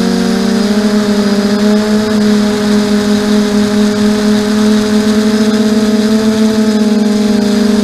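Quadcopter's electric motors and propellers running in flight, heard close up from the onboard camera: a steady hum with several tones that slide apart and together as the motors change speed.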